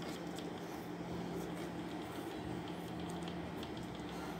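Faint scratching of a pen drawing short strokes on paper, heard as light scattered ticks over a steady low hum.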